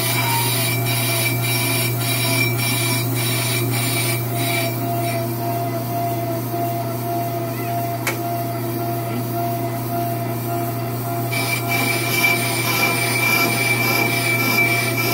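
Ammco brake lathe running, its cutting bits scraping across the faces of a spinning disc brake rotor over a steady motor hum and whine, resurfacing a warped rotor. A faint regular ticking, about twice a second, runs through the first few seconds.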